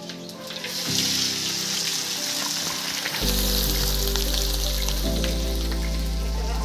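Chopped onion, green chillies and whole spices sizzling in hot oil in a wok (kadhai), a steady frying hiss that builds about a second in. Background music plays under it.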